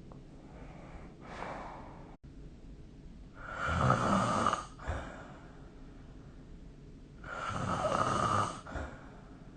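A sleeping person snoring: two loud snores about four seconds apart, each followed by a brief short sound, with a fainter breath about a second in.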